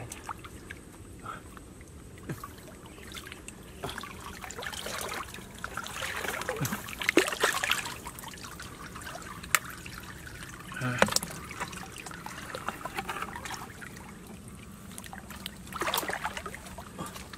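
Muddy river water splashing and trickling as a person wades and works his hands through it among submerged tree roots. The splashes come irregularly, the strongest a little past the middle, with a few short sharp knocks.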